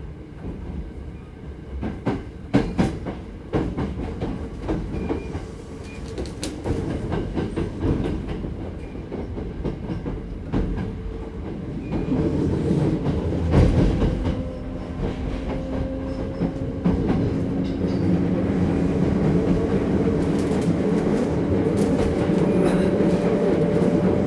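Hankyu 8200 series electric train heard from on board, its wheels clacking over points and rail joints. From about halfway, the Toshiba GTO inverter's steady whine comes in and climbs slowly in pitch as the train gathers speed, the running noise growing louder.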